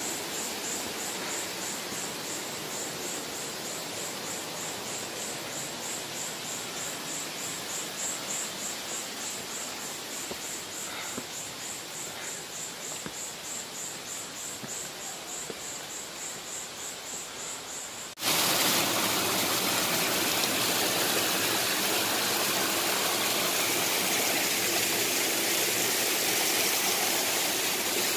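High-pitched insect chirping in an even, pulsing rhythm over a quiet woodland background. About eighteen seconds in it cuts suddenly to the louder, steady rush of water running over the rocks of a shallow stream.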